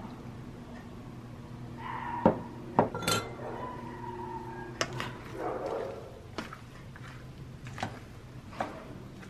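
A spoon clinking and scraping against a stainless steel mixing bowl while vegetables are tossed in a marinade: a string of sharp clinks, the loudest about two seconds in, one ringing briefly.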